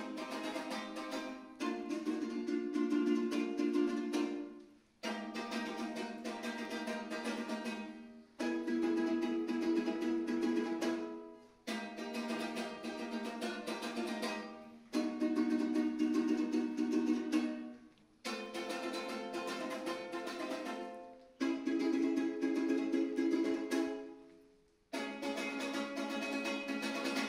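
Panduri, the Georgian three-string lute, strummed in rapid tremolo chords. Each chord starts abruptly, holds for about three seconds and fades, and then a new chord follows.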